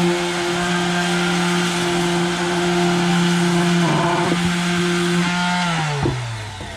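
Handheld electric power tool running at a steady high speed, with a brief change in tone about four seconds in, then switched off and spinning down with a falling pitch near the end.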